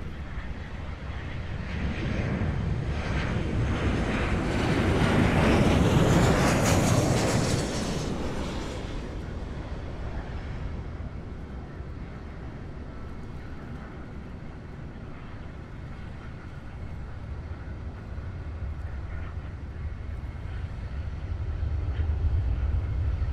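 Airbus A320neo jet airliner with Pratt & Whitney geared turbofans passing low overhead on final approach: the engine noise swells to a loud peak with a hissing top about six seconds in, then fades away as the jet recedes, leaving a low rumble that grows again near the end.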